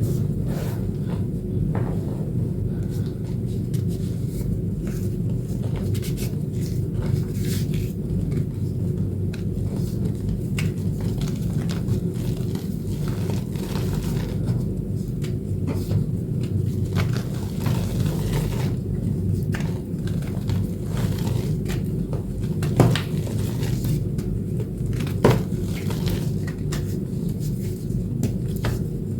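Reformed blue chalk, made with corn starch paste, being crushed and crumbled by hand: a dense, continuous low crunching with many small crisp cracks, and two louder snaps near the end.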